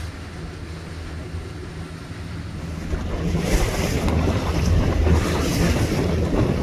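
Boat motor running steadily under way, a low hum, with wind buffeting the microphone and water noise that grow louder about three seconds in.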